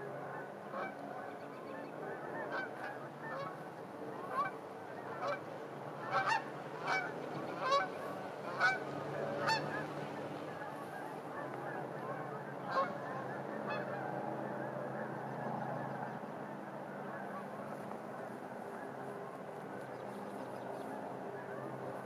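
A flock of geese honking: many short, overlapping calls, thickest and loudest between about four and ten seconds in, then thinning out. Under the calls runs the steady low hum of distant traffic.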